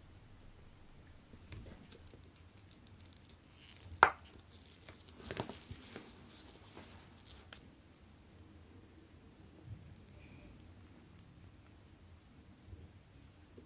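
Quiet handling sounds of tweezers and gloved hands working on a watch movement in its holder: a single sharp click about four seconds in, a second or two of scratching and rustling just after it, and a few faint ticks later.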